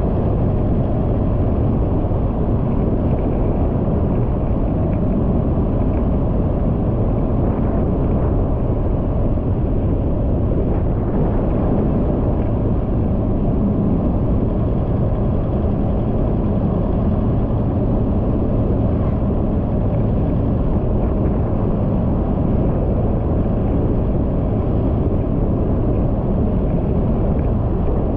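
Steady low rumble of a vehicle driving along a paved road at about 45 to 50 km/h, with no change in pitch or loudness.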